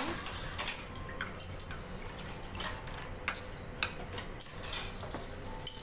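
A metal spoon clinking and tapping on a ceramic soup bowl in scattered light knocks as a boiled egg is set into the soup.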